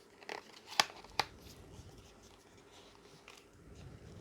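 Packaging being handled and opened by hand: a few sharp clicks, the two loudest just under a second and about a second and a quarter in, then faint rustling.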